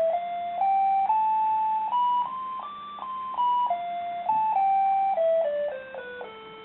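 Casio MQ-1200 alarm clock-calculator's electronic beeper playing a tune of single notes, climbing step by step and then stepping back down, stopping near the end.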